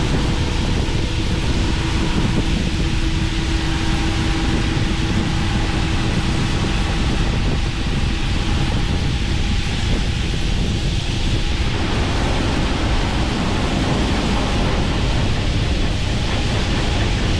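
Large harvest machinery running steadily: a deep engine drone with a faint constant hum and a wash of wind noise on the microphone.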